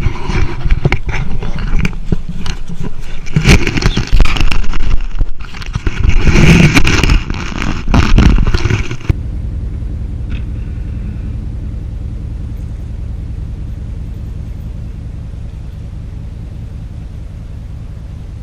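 A vehicle engine running under load as it drags a fallen pine log out through the woods, with scraping and crashing from the log and brush. About nine seconds in, the scraping stops and a steady engine hum carries on, slowly fading.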